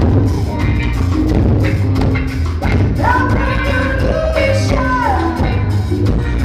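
Live rock band playing at full volume: electric guitar, bass guitar and drum kit, with a singer's long held notes coming in about halfway through.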